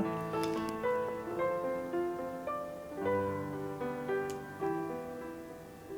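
Background music: soft keyboard notes that change about every half second.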